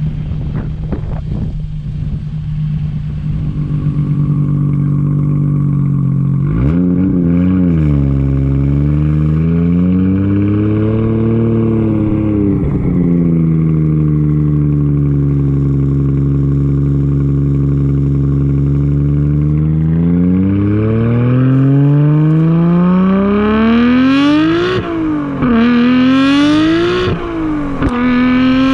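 Twin-turbocharged car engine running loudly: a steady note, revved up and down a couple of times, held at an even pitch, then accelerating hard with the pitch climbing and dropping sharply at two gear changes near the end.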